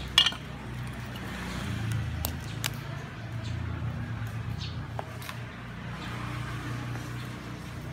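A raw crab being handled and pried apart on a wooden cutting board: a few sharp clicks and knocks of shell and board, the loudest just at the start. A low steady rumble runs underneath.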